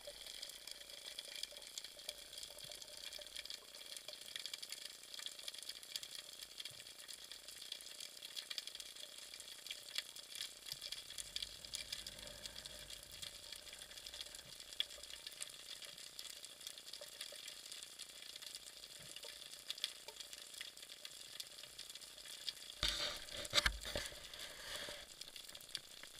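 Underwater ambience over a rocky seabed: a steady, fine, sizzling crackle of countless tiny clicks. About 23 seconds in there is a short, louder burst of noise.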